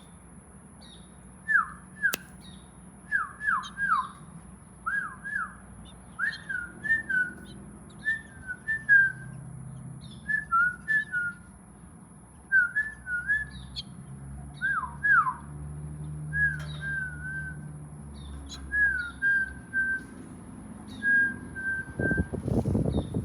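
A long series of clear whistled notes, mostly quick falling slurs in pairs and threes, with some short held notes toward the end. A rumbling handling noise comes in near the end.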